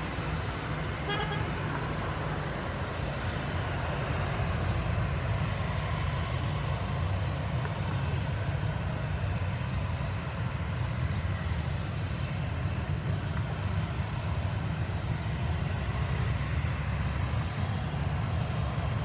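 Boeing 737-800's CFM56 jet engines running at taxi idle as a steady low rumble with a hiss above it.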